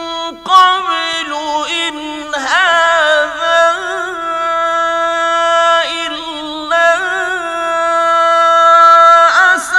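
A man's voice in mujawwad (melodic) Quran recitation, drawing out long high vowels decorated with melodic turns and vibrato. A few short breaks interrupt the held notes.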